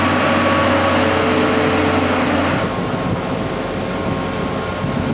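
Steady machinery hum over a wash of wind-like noise, with several humming tones that drop away about two and a half seconds in, leaving a rougher, noisier rush.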